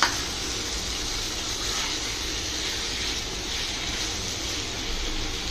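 Chicken pieces and onion masala sizzling steadily in a hot pan of oil while being stirred with a spatula.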